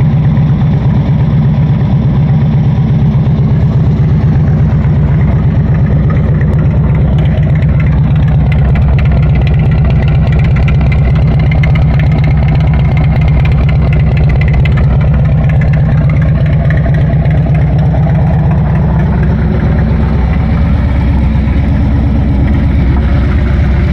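Motorcycle exhaust through Shark 4.5-inch slip-on mufflers and Bassani header pipes, the engine idling steadily with a loud, deep, even throb.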